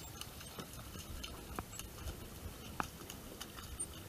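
Small drips, splashes and water lapping right at a kayak's hull, with two clearer plinks of falling drops, about one and a half and three seconds in, over a steady low rumble.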